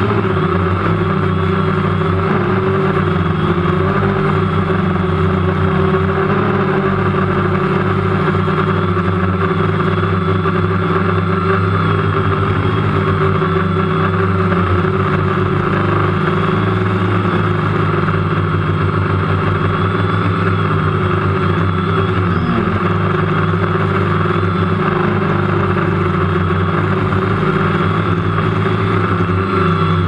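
DJI Phantom 1 quadcopter's motors and propellers running, a steady multi-tone drone heard close up from the camera it carries, with wind rumbling on the microphone.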